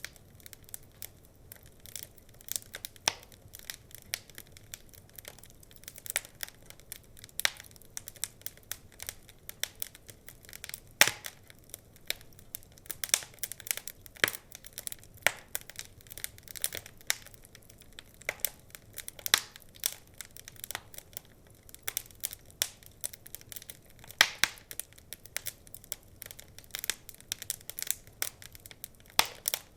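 Wood fire crackling and popping: irregular sharp snaps, a few louder pops among many small crackles, over a faint steady hiss.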